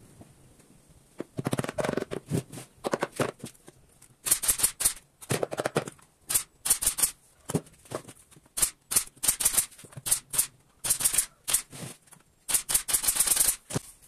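Quick scraping or rubbing strokes on wooden speaker-box boards, in short runs of several strokes with brief pauses between.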